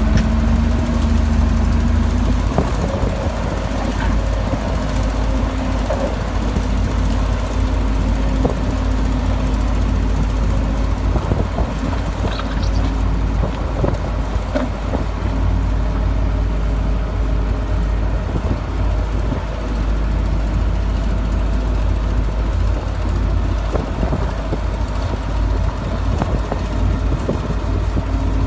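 A bulldozer's diesel engine runs steadily with a deep, heavy rumble. Scattered short knocks and clanks sound over it.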